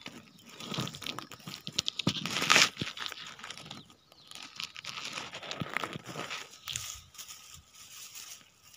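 Dry grass stalks rustling and crackling as they brush against a phone pushed in among them, in irregular bursts with the loudest about two and a half seconds in.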